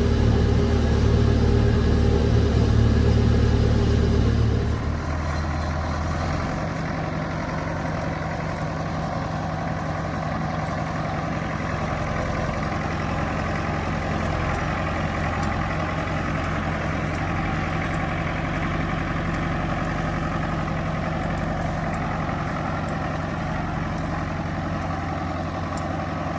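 Farm tractor's engine running, loud for the first few seconds, then dropping about five seconds in to a lower, steady hum.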